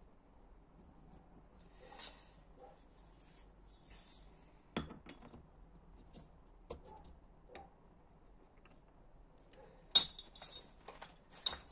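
Scattered light metallic clinks and clicks of small engine parts and tools being handled while a piston ring is readied for an end-gap check. The loudest is a sharp click about ten seconds in, followed by a few quicker clicks near the end.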